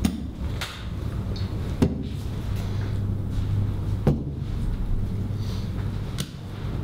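Playing cards being dealt onto a table: a few sharp taps, the two loudest about two seconds apart, over a steady low hum.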